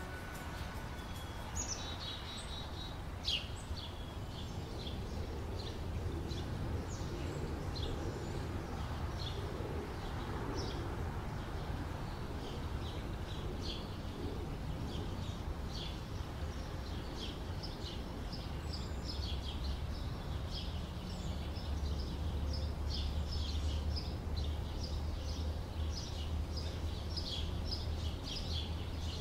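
Small birds chirping, many short high chirps repeating throughout, over a steady low rumble.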